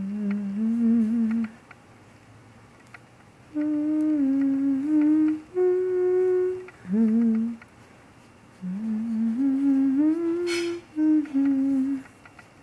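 A person humming a slow, wordless tune in short phrases of held notes, with pauses between them. A single sharp click near the end.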